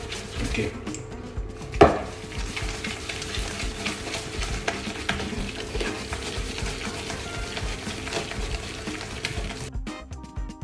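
Wire whisk beating a thick cream of baked white chocolate and mascarpone in a stainless steel bowl, the wires scraping and clicking against the metal in quick, continuous strokes. There is a sharp knock about two seconds in.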